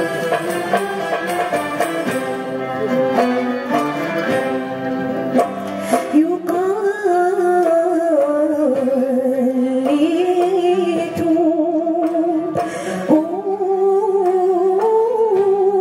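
A string ensemble of ouds, mandolins and violins playing a melody together; about six seconds in, a woman's solo voice enters over them, singing long, ornamented phrases with vibrato.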